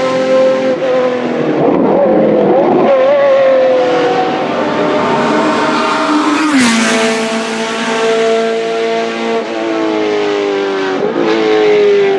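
Racing car engines running at high revs on a circuit, their pitch shifting as they accelerate and shift gear. About halfway through, one car passes close by and its pitch drops sharply.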